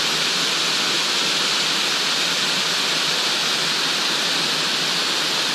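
Small stream running steadily over rocks and pouring into a pool, a constant rushing of water.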